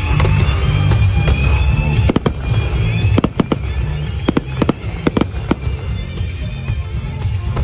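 Fireworks going off: a quick string of about a dozen sharp bangs and cracks in the middle of the stretch, over music playing throughout.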